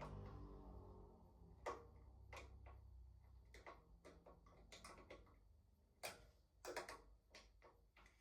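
Faint, irregular clicks and light knocks, a dozen or so spread unevenly over several seconds, with the tail of background music fading out at the start.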